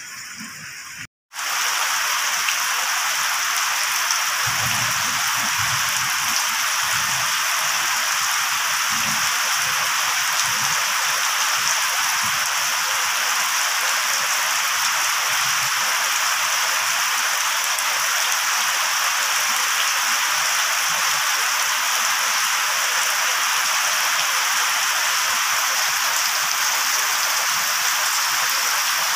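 Steady rain falling on wet ground and fallen leaves, starting about a second in after a brief gap.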